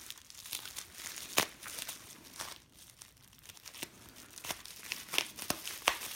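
A mailed package being opened by hand: packaging crinkling and tearing in irregular bursts, with a couple of sharper snaps.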